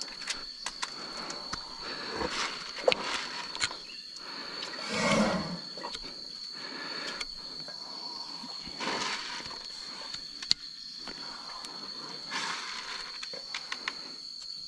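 Hoof knife scraping and paring the horny sole of an elephant's foot around an abscess, a run of small scratchy clicks, over a steady high background tone. About five seconds in the elephant gives one brief, louder, low call.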